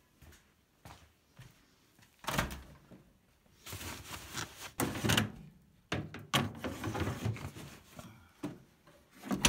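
A series of clunks and knocks, like a door or drawer being opened and shut, with two stretches of rustling or scraping handling noise in between. The sharpest knock comes near the end.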